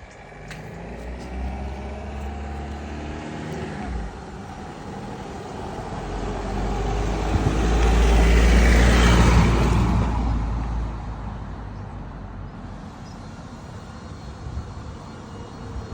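A motor vehicle drives past: its engine and tyre noise grow louder to a peak about eight to nine seconds in, then fade away.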